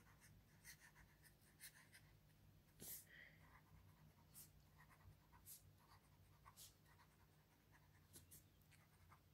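Faint, short, irregular scratches of a marker pen drawn across notebook paper, finishing a word and then squiggling wavy underlines beneath words.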